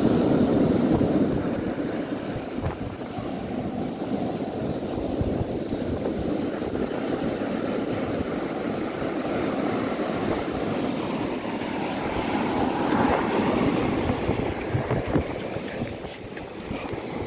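Wind buffeting the microphone over surf breaking on a pebbly beach, a little louder in the first couple of seconds. A few light knocks near the end.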